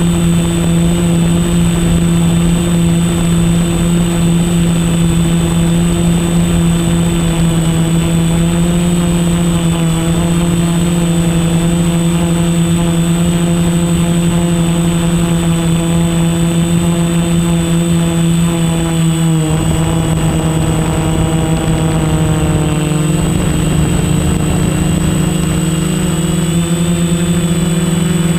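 Quadcopter's electric motors and propellers running with a steady whine, its pitch dropping briefly twice, about 19 and 23 seconds in, as the throttle changes. A thin steady high tone sits above it.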